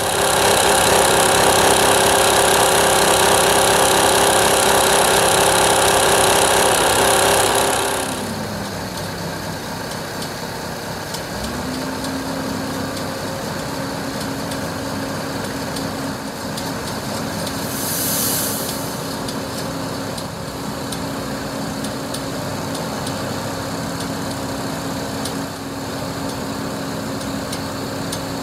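The Renault Premium 320dCi truck's diesel engine running with its hydraulics driving the truck-mounted crane: loud and steady for the first eight seconds or so, then dropping and gliding down in pitch, and rising again about twelve seconds in to a steady working speed as the crane boom unfolds. A brief hiss comes about eighteen seconds in.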